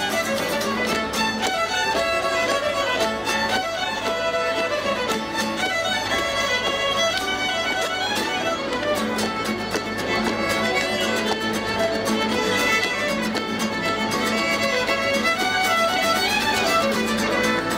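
Several fiddles playing a lively traditional Celtic tune together over acoustic guitar accompaniment, with a steady rhythmic pulse.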